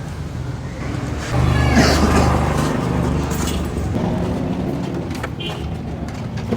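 A motor vehicle's engine running close by, getting louder about a second in and holding steady.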